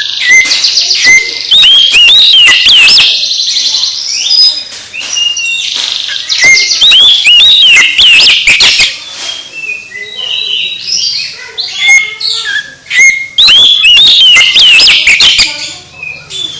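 Oriental magpie-robin (kacer) singing loudly: a fast, varied run of high whistles, chirps and rattling notes in three long bursts, with sparser calls in the pauses between.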